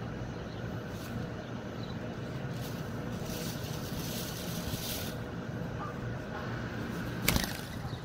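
Steady low outdoor rumble, then one sharp wing clap about seven seconds in as a mourning dove takes off.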